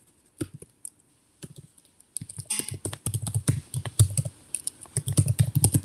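Typing on a computer keyboard: a few scattered keystrokes, then fast continuous typing from about two seconds in.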